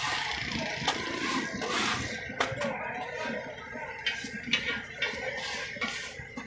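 Metal spatula scraping and clinking on a flat steel tawa griddle as raw mutton liver pieces are chopped and pushed on it, in irregular sharp clinks.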